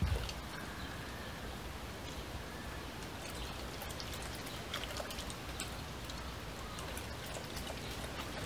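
German Shepherd lapping water from a birdbath: a run of small, irregular splashes and drips.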